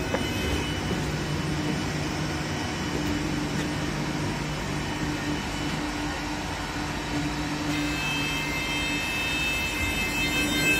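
Steady running noise inside the passenger saloon of an EN57AKM electric multiple unit, with a low hum throughout. A higher steady whine joins about eight seconds in.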